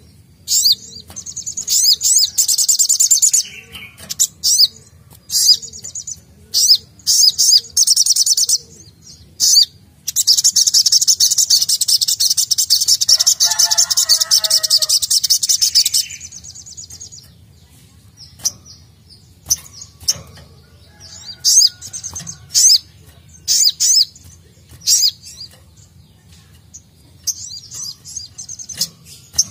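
Male sunbird (sogok ontong) singing in fast, high, rapid trills. Short bursts come first, then one long trill of about six seconds. After that there are only scattered short chirps, and trilling resumes near the end.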